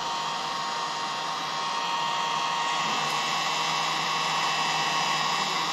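Electric hot-air blower running steadily: an even rush with a faint steady whine. It is warming the bottom of an iPad mini's screen to soften the adhesive holding the cracked glass.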